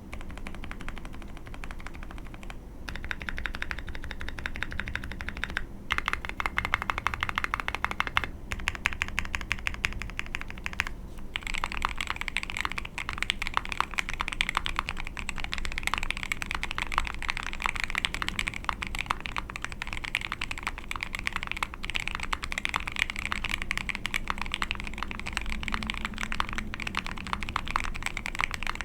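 Fast, continuous typing on a custom Ai03 Vega mechanical keyboard with a POM plate, lubed Marshmallow linear switches and KAT keycaps. The keystrokes run densely, with brief pauses about 3, 6, 8 and 11 seconds in.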